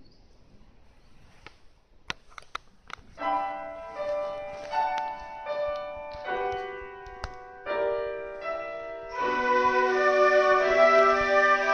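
A grand piano plays an introduction in separate struck chords that ring and fade. About nine seconds in, a flute ensemble comes in with held notes over the piano, louder than the opening. Before the piano starts there are a few sharp clicks over quiet hall tone.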